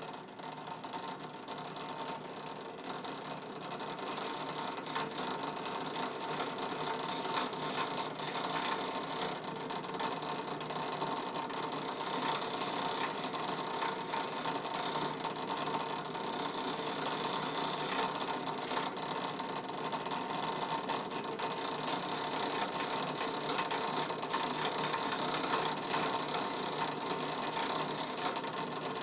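Drill press starting up and running a brass wire wheel, with the metal crank of an old brace-and-bit drill held against it: a steady motor whir under a gritty, shifting hiss of wire scrubbing a tough, gummy coating off the metal.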